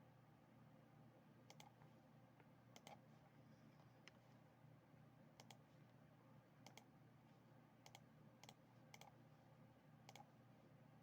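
Faint computer mouse button clicks, each a quick double tick, about eight spread irregularly, over a low steady hum.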